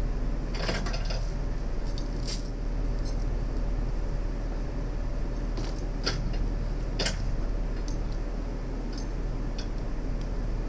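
Steel chain clinking and rattling as it is wrapped around a tree trunk: a few separate metallic clinks, a small cluster early and single ones later, over a steady low background rumble.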